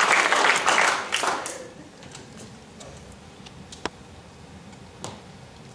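Audience applause dying away within the first second and a half, leaving a quiet hall with a couple of isolated sharp clicks.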